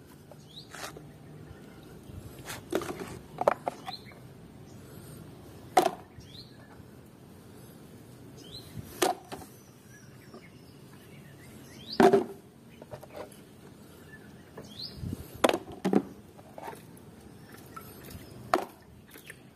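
Hard plastic toy figures and toy guns, slick with mud, knocking and clattering as they are picked up and put down: about nine separate clunks a second or two apart, the loudest about twelve seconds in. Faint short bird chirps in between.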